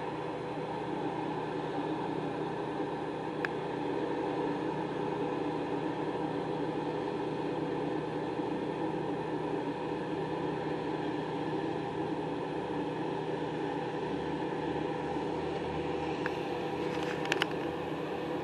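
A machine running steadily, a low hum with several even tones, with a faint click about three seconds in and a few clicks shortly before the end.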